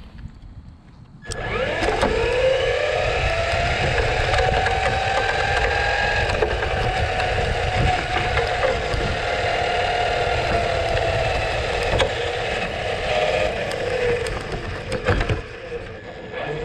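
Electric motor of a Traxxas Mustang GT RC car whining as it accelerates from a standstill, about a second in, then holding speed and easing off near the end. Tyre and road rumble from the path, heard close from a camera mounted on the car.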